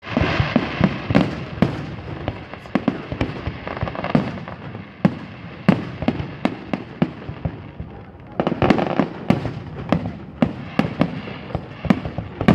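Fireworks display: aerial shells bursting in a rapid, irregular run of sharp bangs, several a second. A denser, louder volley comes about eight and a half seconds in.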